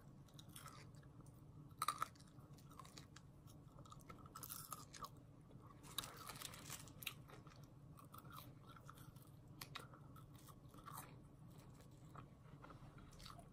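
Faint close-up chewing of crisp McDonald's fries: soft, scattered crunches and mouth sounds over a low steady hum.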